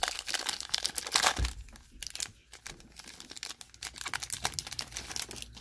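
Wrapper of a Topps Stadium Club baseball card pack being torn open and crinkled by hand: a dense run of crackling in the first second and a half, then sparser crinkles.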